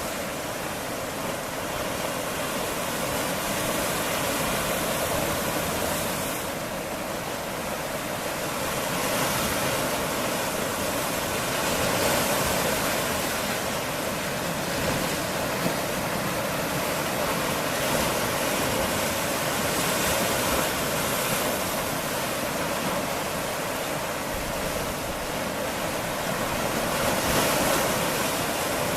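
Mediterranean sea waves washing against rocky shore: a steady rushing surf that swells and eases every few seconds.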